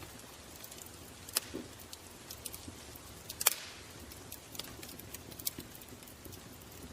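Wood fire crackling: scattered sharp pops and snaps at irregular times over a soft steady hiss, the loudest snap about three and a half seconds in.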